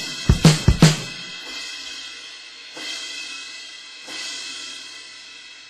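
Homemade electronic drum kit triggering Addictive Drums sampled drums: a fast run of drum hits ending about a second in, then two cymbal crashes a little over a second apart, each ringing out and fading.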